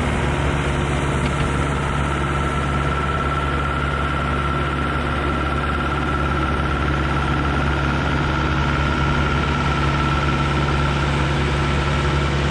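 A heavy-equipment engine running at a steady speed, with a steady high whine over its low drone.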